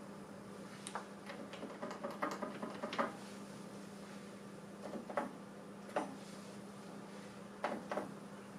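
Keys of a late-1960s Canon Canola 130S transistor calculator being pressed by hand: a series of separate sharp clicks, a quick group in the first few seconds, then single presses about a second apart, over a steady low hum.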